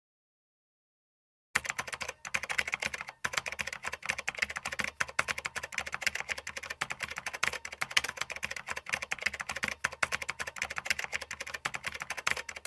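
Sound effect of rapid, irregular clicking, many clicks a second, starting about a second and a half in.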